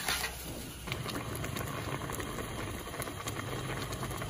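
Soaked rice scraped off a steel tray with a spatula and dropped into a large pot of boiling stock, a brief rushing splash for about the first second. Then the pot bubbles steadily with many small pops and crackles.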